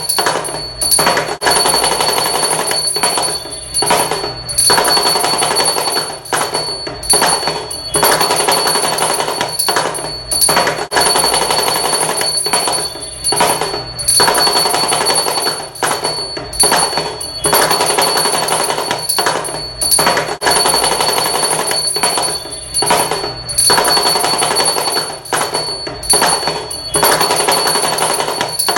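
Damru, the small two-headed hourglass hand drum, rattled in fast continuous rolls that come in repeating phrases broken by short gaps about every second or so, with a steady high ringing tone over it throughout.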